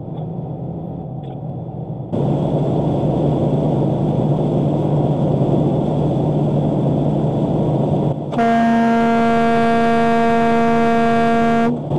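Steady engine and road drone inside a semi truck's cab on the highway. About eight seconds in, a truck horn sounds one steady, unbroken note, held for about three and a half seconds.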